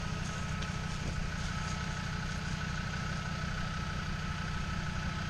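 Land Rover Defender TD5's five-cylinder turbodiesel idling steadily, with a faint steady high whine over the low engine beat.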